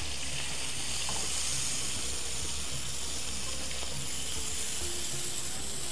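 Seekh kababs frying in shallow oil in a pan: a steady sizzle.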